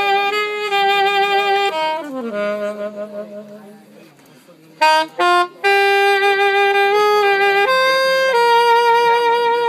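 Alto saxophone playing a slow melody of long held notes. About two seconds in, a phrase ends with a downward slide to a low note that fades away. After a couple of short notes, a new phrase of long held notes begins.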